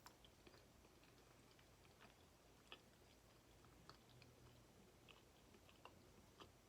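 Faint chewing: soft, wet mouth clicks and smacks scattered irregularly through near silence.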